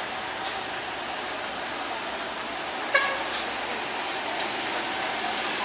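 Road traffic on a steep winding hill road: a loaded dump truck and following vehicles running past, with two short air hisses, typical of truck air brakes, about half a second and three and a half seconds in, and a sharp click just before the second.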